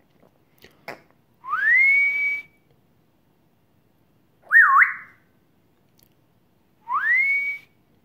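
African grey parrot whistling: a rising whistle that levels off and holds for about a second, a short up-and-down warble, then the same rising whistle again. A faint click comes just before the first whistle.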